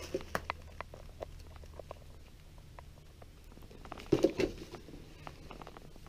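Faint, scattered ticks and crackles of paper and litter being disturbed, with a louder short clatter about four seconds in.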